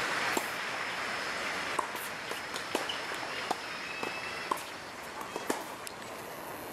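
Tennis balls struck by rackets and bouncing on the court in a practice rally: a sharp pop about once a second.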